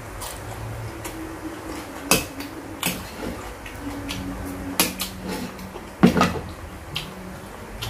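Metal spoon clinking and scraping against a small ceramic bowl of dipping sauce, several sharp clinks, the loudest about six seconds in.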